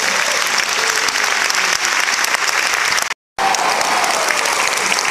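Audience applauding steadily, with a brief total dropout about three seconds in.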